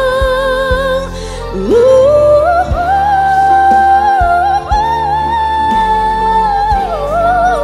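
Live pop ballad: a female singer holds long wordless notes with vibrato over band accompaniment. About two seconds in she slides up to a long high note, then drops briefly near the end.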